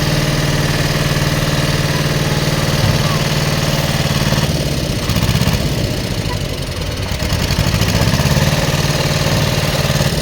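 Heavy diesel engine running steadily at low revs. A little under halfway through, its higher tones fall away and it carries on with a slower pulsing beat.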